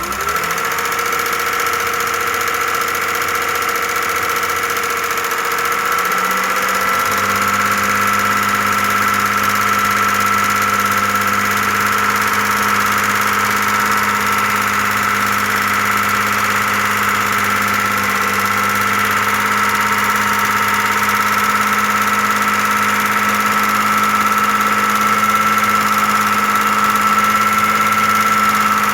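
Audi A6 engine idling steadily with a high whine running through it. Its note shifts slightly about six seconds in.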